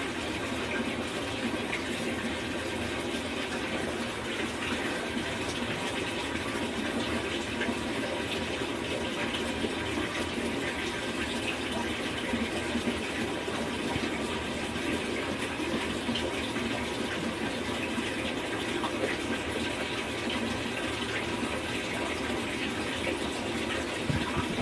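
Water running steadily into a washing machine as it fills.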